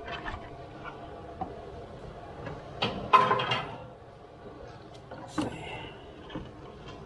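Clunks, clicks and rattles of hands and hand tools working around a car's radiator hoses and fittings. The loudest burst of knocking and rattling comes about three seconds in, with a single sharp knock about five and a half seconds in.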